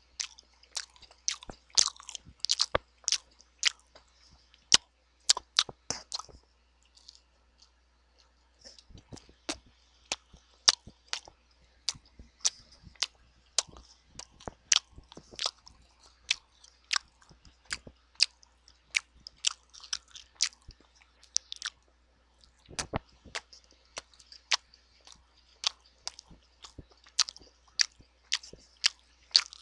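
A person chewing pizza close to the microphone: irregular crisp crunches and wet mouth clicks, with a short pause about seven seconds in.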